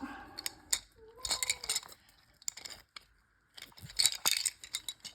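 A model train engine and its packaging being handled: light clicks and crinkling rustles in two spells, one starting about a second in and a busier one about four seconds in.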